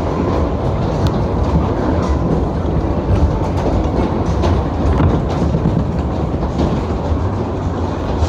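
Maxwell 10-car waltzer running at full speed: a steady low rumble from the cars rolling round the undulating track, with scattered light clacks.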